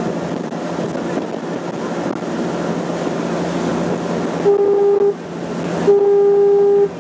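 Passenger ferry's engine running steadily with the rush of its wake, then a boat horn sounds twice at one steady pitch, a short blast about four and a half seconds in and a longer one about a second later.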